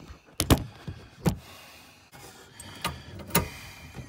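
A few sharp clicks and knocks as a cable strain relief is worked into a knockout hole in the side panel of a Xantrex inverter charger, the loudest near the start and near the end.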